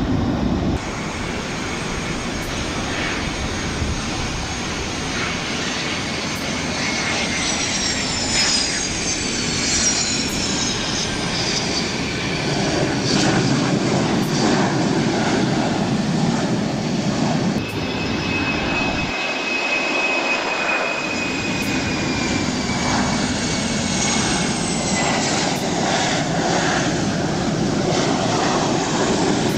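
Jet airliners, a Boeing 737 and a Fokker 100, running on the runway one after another: a steady engine rumble with high turbine whines that glide down in pitch as each aircraft passes. There is an abrupt change about two-thirds of the way through, where one aircraft gives way to the next.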